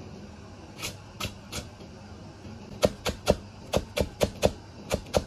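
A Chinese cleaver mincing a scallion on a plastic cutting board. A few light cuts come first, then from about halfway a steady run of chopping strokes, about four a second.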